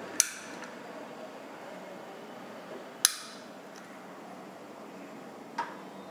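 Three sharp clinks of a stainless-steel chakli press knocking against a ceramic plate, each ringing briefly: one just after the start, the loudest at about three seconds, and a softer one near the end.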